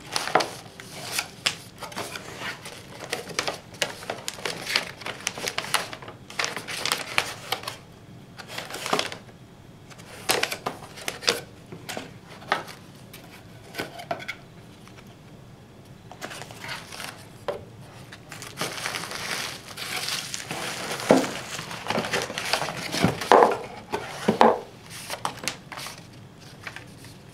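Packaging being handled: paper inserts, cardboard box flaps and bubble wrap rustling and crinkling in irregular crackles and taps, with a short lull about halfway.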